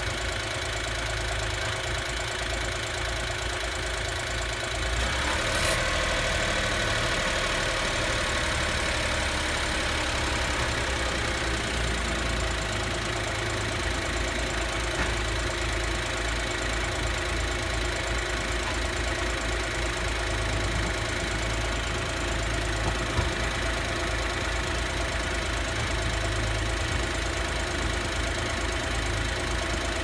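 Honda Acty's small three-cylinder engine idling steadily during an air-conditioning refrigerant charge; about five seconds in a click is heard and a steady hiss sets in over the idle.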